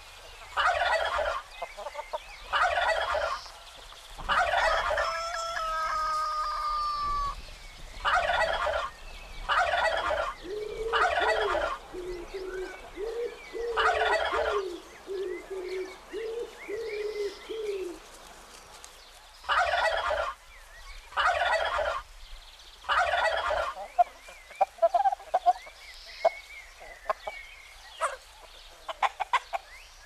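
Tom turkeys gobbling again and again, each gobble a short rattling burst, about ten in all. A rooster crows once about five seconds in, a run of low clucks fills the middle stretch, and a few sharp clicks come near the end.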